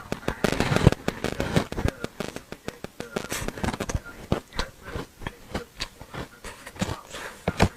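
Hard ice chunks dusted with matcha powder being bitten and chewed close to the microphone: a dense run of sharp crunching cracks in the first two seconds, then slower, separate crunches.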